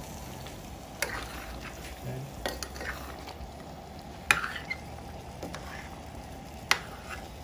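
Chicken stew in gravy sizzling steadily in a metal pot while a spoon works the pieces, knocking against the pot four times, loudest about four seconds in.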